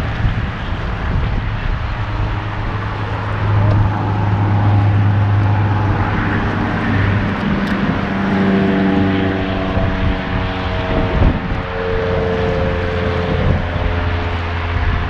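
Engine drone with a steady low hum. About halfway through, a cluster of higher tones joins it, shifts in pitch, and fades near the end, like a motor passing by.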